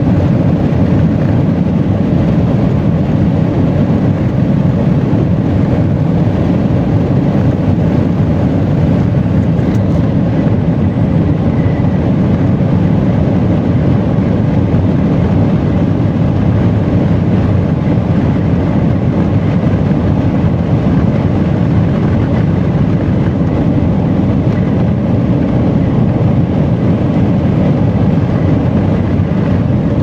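Jet airliner cabin noise in flight: a steady, deep rushing drone that does not change.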